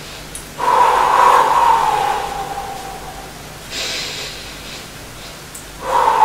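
A woman's audible, paced Pilates breathing, each breath timing one leg circle. A long, strong breath starts about half a second in and slowly drops in pitch as it fades. A shorter, airier breath comes near four seconds, and the next strong breath begins near the end.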